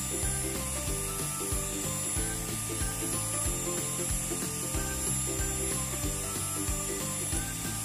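Electric hand mixer running steadily, its wire beaters whipping cream in a bowl, under background music with a steady beat.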